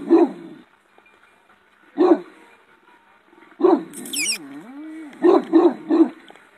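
Large shepherd dog barking powerfully: single barks spaced a second or two apart, then a drawn-out wavering note about four seconds in, followed by a quick run of three barks.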